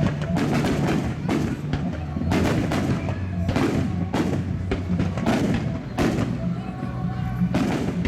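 Aerial fireworks bursting in quick succession, a deep boom about every second, with music playing underneath.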